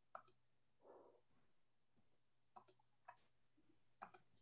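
Faint computer mouse clicks, about seven of them, mostly in quick pairs, over near silence with a faint steady low hum.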